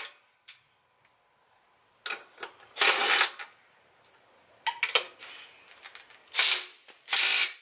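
Cordless power ratchet run in short bursts, about five of them spaced across a few seconds, spinning nuts off the bike's rear shock mounts.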